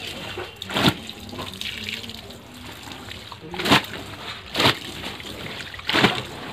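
Tap water running steadily onto a concrete floor as wet cloth is rinsed by hand under it, with four loud wet splats from the sodden cloth.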